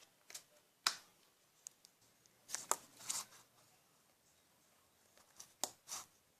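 Plastic toy knife chopping toy chicken on a toy cutting board: a scattering of sharp clicks and taps, some with a short scraping rasp, in clusters with pauses between.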